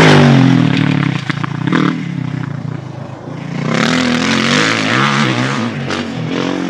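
Dirt bike engine revving hard through a corner, its pitch rising and falling with the throttle. It is loudest at the start, fades around three seconds in, then builds again.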